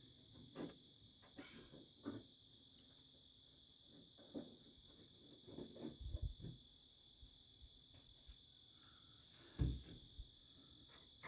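Crickets chirping in a steady high drone, with scattered light knocks and clicks of hand work on a truck door. The loudest thump comes near the end.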